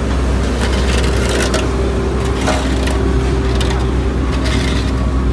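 A motor engine running steadily at a constant pitch, with scattered clicks and scrapes over it.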